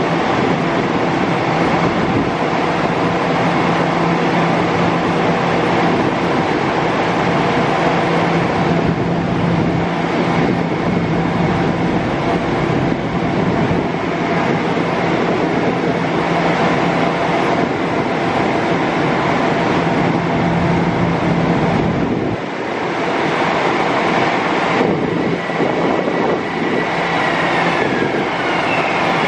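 Bombardier M7 electric trains in the station: a loud, steady rumble and hum of train equipment and wheels, with a whine sliding down in pitch near the end as an arriving M7 slows to a stop.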